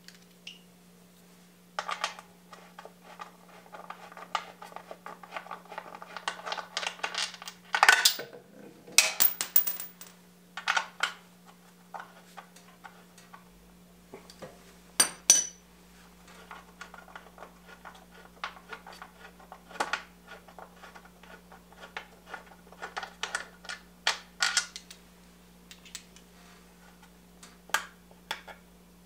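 Small metal parts and hand tools clinking and clattering, with scattered sharp clicks, as the stock air cleaner hardware is taken off a Harley-Davidson Twin Cam engine, over a steady low hum. The loudest clatters come about a third of the way in and again around the middle.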